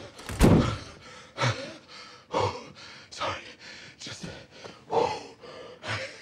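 A man breathing hard and gasping, short heavy breaths about once a second, out of breath and a little lightheaded from hurrying.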